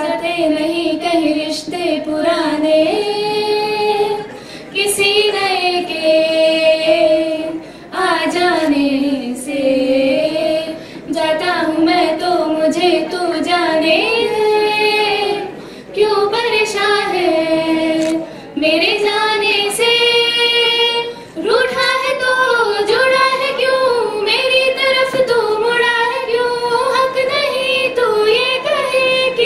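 Two girls singing a slow, unaccompanied melody into handheld microphones, in long phrases of held notes with vibrato and short pauses for breath between them.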